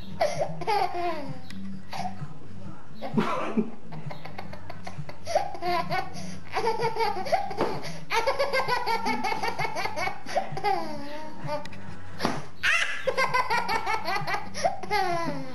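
A toddler laughing hard in repeated belly-laugh fits. The laughter comes in quick runs of ha-ha pulses and in squeals that slide down in pitch.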